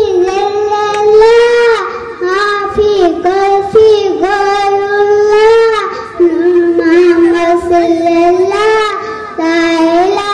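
A high-pitched voice singing an Islamic devotional song, holding long notes that bend in pitch, with short breaks between phrases.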